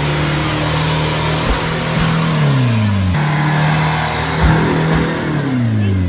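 Off-road 4WD engine revving under load as it climbs over rocks, holding its revs and then letting them fall away, twice. Two brief thuds sound in between, about a second and a half and four and a half seconds in.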